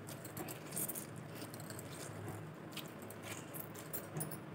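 Faint wet squelching of grated bottle gourd squeezed by hand, its water pressed out into a plate, with a few short crackles.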